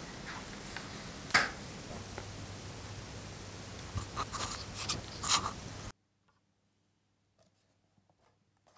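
Scattered sharp clicks and taps over a steady hiss, the loudest about one and a half seconds in and a cluster of them a few seconds later. After a sudden drop in level about six seconds in, faint ticks and rustles of a cardboard cat-food box being opened by hand.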